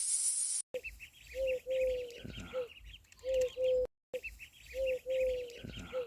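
Bird calls: a series of low, clear, steady notes with quick high chirping above them. The same short clip plays twice, with a brief silent gap between. A high hissing, jingling sound cuts off just under a second in.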